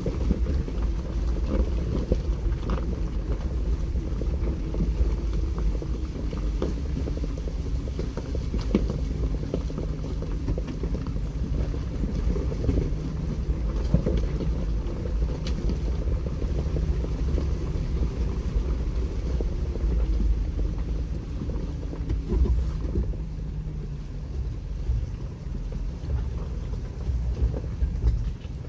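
Jeep Wrangler engine running at low speed while crawling along a rocky off-road trail, with scattered clicks and knocks over the steady engine sound.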